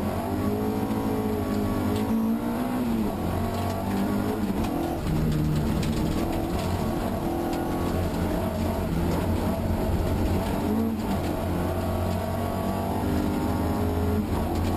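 Competition car's engine heard from inside the cabin at full effort on a hill climb. Its pitch climbs and drops back repeatedly as it revs up through the gears and lifts off for bends.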